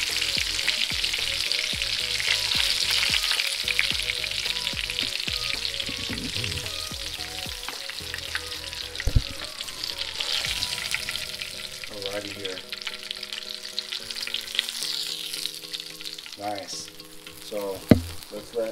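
Breaded striped bass fillets sizzling and crackling in hot peanut oil and butter in a frying pan. The sizzle slowly dies down, and a couple of sharp clicks come through, one about halfway and one near the end.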